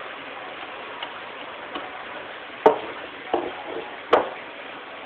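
Three sharp knocks or clicks, the first the loudest, over a steady hiss, with two fainter ticks before them.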